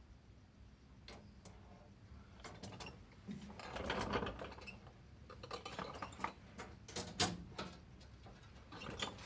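Stainless steel fuel lines being handled and worked into place under a car. The metal tubes click and clink against each other and the underbody, with a stretch of scraping and rubbing about four seconds in.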